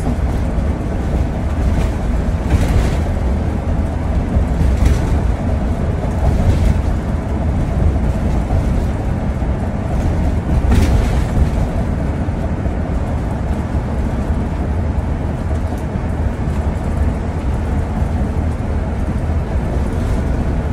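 Steady engine and road rumble inside a motorhome's cab cruising at highway speed, deep and continuous, with a few brief louder noises along the way.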